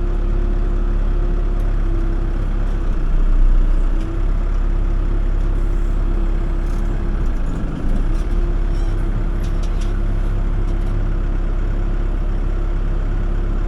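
Backhoe's diesel engine running steadily under the operator's seat, its note dipping briefly about four seconds in and again near eight seconds as it works.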